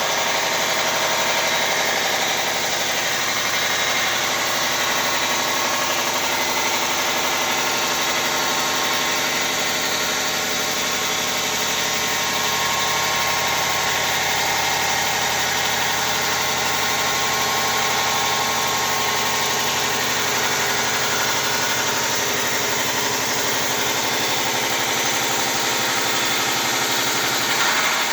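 Five-axis CNC machine running, a steady machine noise with several held high tones over a hiss, unchanging throughout.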